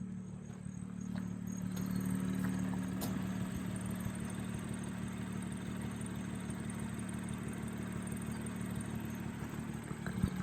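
BMW M2's turbocharged inline-six idling steadily through an M Performance exhaust, freshly started for the first time after a rebuild.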